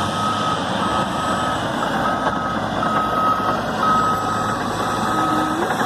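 Reversing alarm of a heavy earthmoving machine on a construction site, beeping steadily about once a second with long, single-pitched beeps. Under it is the constant rumble of the machines' diesel engines.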